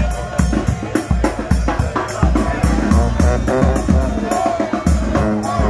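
Second-line brass band playing: sousaphone and horns over a steady, driving drum beat.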